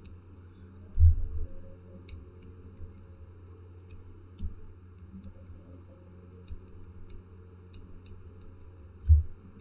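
Light, irregular clicks and taps of a stylus on a drawing tablet while handwriting, over a steady low hum. Two dull thumps stand out, about a second in and near the end.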